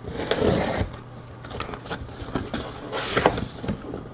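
Packing tape on a cardboard case being slit and the case's top flaps pulled open. There is a rasp of tape and cardboard in the first second, then scattered crackling and a second rustle of cardboard about three seconds in.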